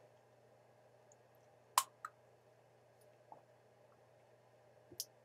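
Quiet room tone with a low steady hum, broken by a few faint sharp clicks of sipping and tasting water from a bottle: one clear click about two seconds in, and softer ones later.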